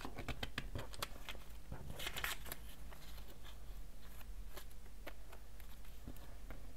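Sheets of printer paper handled and pulled apart, rustling, with scattered light taps and a louder rustle about two seconds in.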